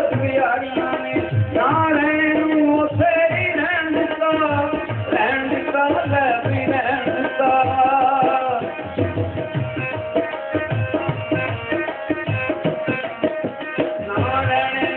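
Instrumental Punjabi folk music: a melody line over a steady, regular hand-drum beat.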